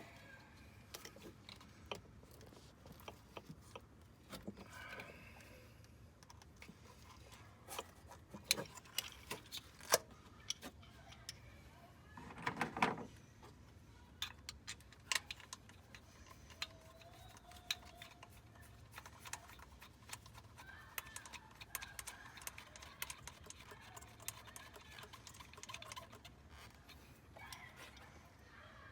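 Scattered small clicks, taps and clinks of tools and engine parts being handled during an ignition coil and spark plug job, over a faint low hum.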